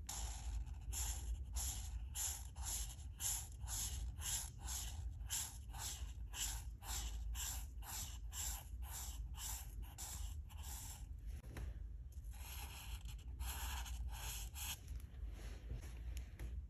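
Alcohol marker tip rubbing across paper in quick back-and-forth colouring strokes, about two to three a second, then after a short pause a few longer strokes near the end.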